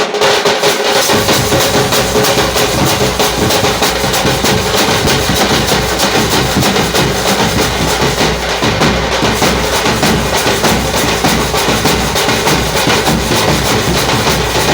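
A drum group playing a loud, fast, continuous beat of rapid strokes, with deep bass-drum hits coming in about a second in.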